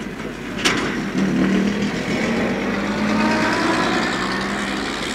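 Street traffic: a motor vehicle's engine running close by, its note slowly rising in pitch, after a sharp knock about half a second in.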